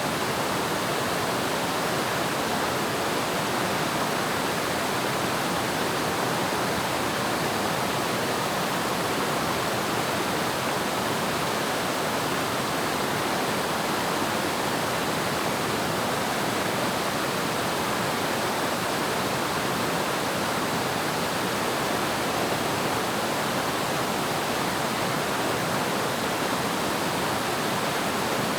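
Waterfall: falling water rushing steadily and evenly, with no changes or breaks.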